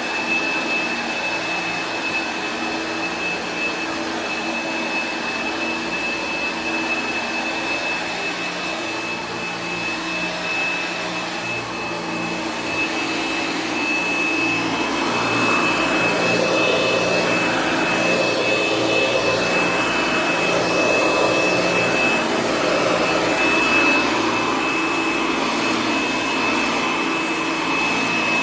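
1964 Hoover Dial-A-Matic 1100 clean-air upright vacuum cleaner running, with a steady high whine over the motor noise. About halfway through it gets louder and its rush rises and falls unevenly.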